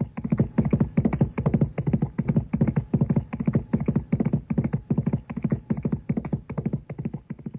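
Horse hooves galloping, a fast even beat of about four hoofbeats a second that fades away near the end: a rider setting off.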